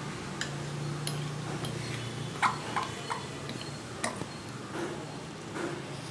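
Fork clinking against the side of a ceramic bowl while stirring thick batter: a scatter of irregular light clicks, the loudest about two and a half seconds in.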